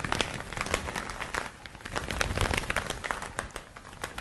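Leather gloves being slapped and flapped together as a foley effect: a run of irregular, quick slaps and rustles.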